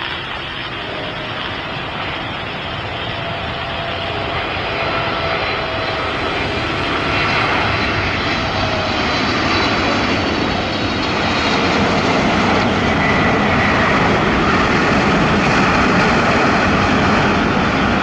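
Boeing 777-300ER's GE90-115B turbofan engines as the jet comes in to land: steady jet noise that grows louder as the aircraft nears, with faint high whine tones sliding in pitch.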